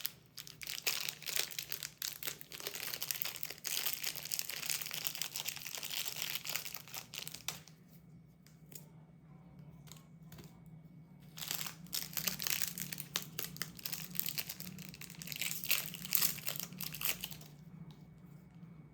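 Candy wrapper crinkling and tearing as it is unwrapped by hand, in two bouts with a short pause between, over a faint steady low hum.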